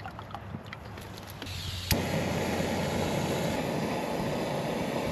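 Portable gas camping stove lit with a sharp click of the igniter about two seconds in, then the burner running with a steady hiss. Faint small clicks of handling come before it.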